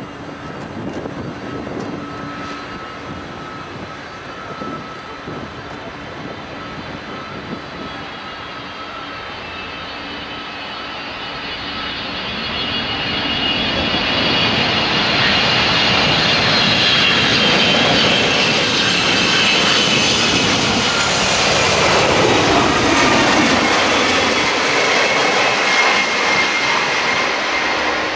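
Jet engines of a Boeing 747-249F freighter on landing approach: a steady roar with high whines that grows much louder about halfway through as the jumbo jet passes close. Its whine then falls in pitch as it goes by toward touchdown.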